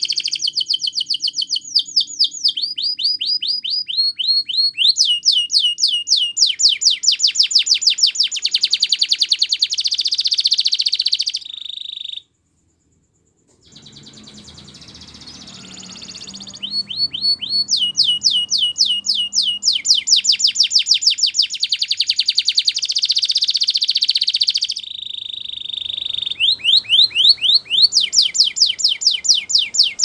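Canary singing long, rapid trills: runs of quickly repeated falling whistled notes, changing from one tour to the next. The song breaks off about twelve seconds in for over a second, then comes back soft and builds up to full strength.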